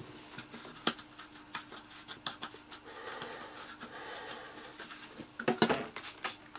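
Cloth rubbing over hard plastic vacuum-cleaner cyclone parts as they are wiped and handled, with light plastic clicks and knocks. Near the end, a few quick squirts from a trigger spray bottle, the loudest sounds.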